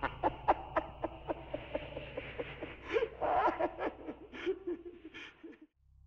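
A person laughing in short breathy pulses over a low steady hum. The sound cuts off suddenly near the end.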